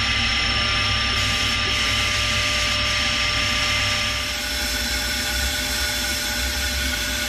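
Sandblast cabinet running: a steady hiss of compressed air through the blast gun over the whine and drone of the cabinet's motor. The hiss eases a little about four seconds in.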